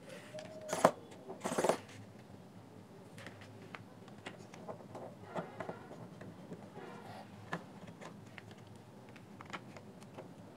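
Small screwdriver turning and lifting out tiny screws from a plastic earbud charging case: faint scattered clicks and short scrapes of metal on screw and plastic, with a couple of louder scraping handling noises in the first two seconds.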